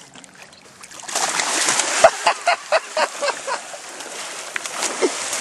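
Cownose rays splashing and thrashing at the water's surface: a rush of rapid, irregular splashes begins about a second in and eases off after a couple of seconds.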